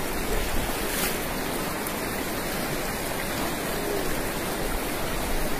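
Shallow river water running over rocks, a steady rushing.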